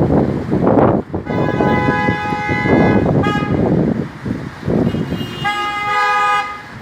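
Train horn sounding two blasts, a longer one of about two seconds and then a shorter one about two seconds later, each a chord of steady tones. Heavy wind buffets the microphone throughout.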